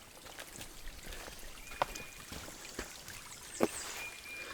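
A small runoff stream trickling and babbling over rocks, with a few sharper splashes about two, three and three and a half seconds in.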